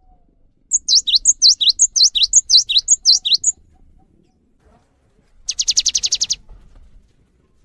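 Cinereous tit singing: a quick run of about nine repeated high whistled notes, each sweeping downward, over about three seconds. After a pause comes a short dry buzzing rattle of rapid pulses.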